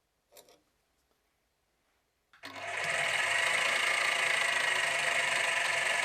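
A workshop machine tool's motor switches on about two seconds in and quickly comes up to a steady run, with a whine high in pitch over a low hum. Before it starts there is one short faint knock.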